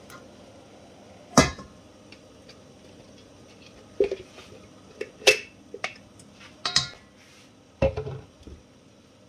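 Kitchen utensils and containers being handled: a scattering of sharp knocks and clinks, the loudest about a second and a half in, with a cluster of them in the second half.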